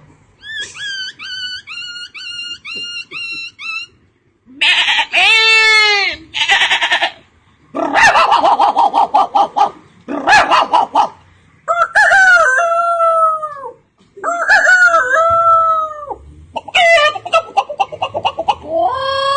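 A man imitating a chicken with his voice: a quick run of short clucks, then long rising-and-falling rooster-like crows and more calls with short pauses between them.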